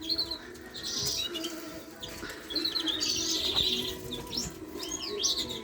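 Caged canaries and finches chirping and twittering, with many short, high calls and trills overlapping, busiest around the middle.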